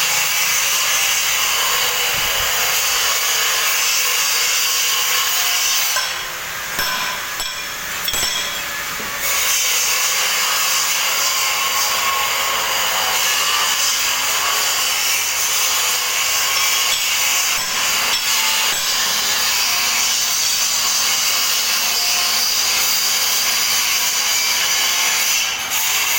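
Power tool grinding steadily with a high, hissing rasp. It eases off for about three seconds starting about six seconds in, then carries on.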